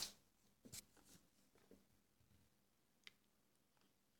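Near silence: room tone with a few faint, short clicks or knocks, the clearest about three seconds in.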